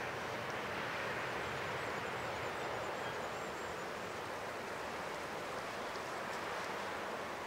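Steady rushing ambient noise, with a faint high twittering from about one to four seconds in.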